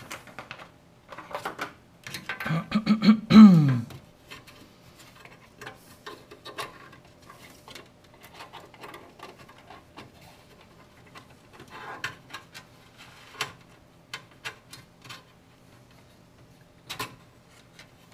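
Hands working a PC power cable through a slot in an open-frame test bench: scattered small clicks, taps and rustles of the cable and frame. About three seconds in there is a louder burst of scraping that ends in a sound falling in pitch.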